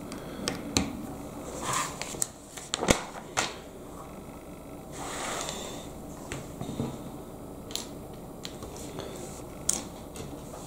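Plastic Lego bricks clicking as they are pressed together and handled, with pieces tapped down on a wooden table: a scattering of short, sharp clicks a second or so apart.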